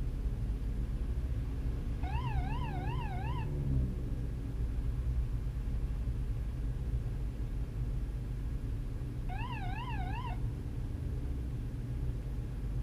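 Racing Toyota MR2 engine running at a steady idle. Twice a warbling electronic tone rises and falls about three times a second, each lasting a second or so: first about two seconds in, again near ten seconds.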